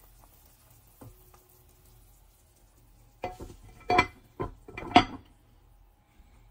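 A glass lid set onto a metal pot knocks and rattles against the rim, four or five sharp clinks with a short ring, over about two seconds.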